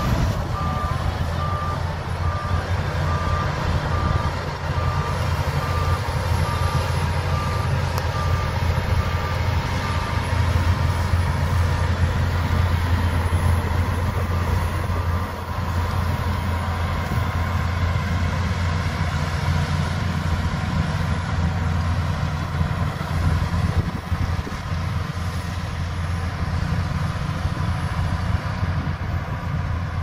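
Shantui crawler bulldozer's diesel engine running steadily under load, with a reversing alarm beeping about twice a second for roughly the first ten seconds.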